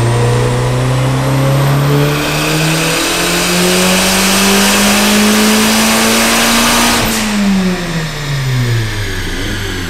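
Turbocharged VW 1.8T 20-valve four-cylinder on a chassis dyno at full throttle, revs climbing steadily as a rushing noise builds about two seconds in. At about seven seconds a sharp crack marks the lift off the throttle, and the revs fall away as the engine winds down.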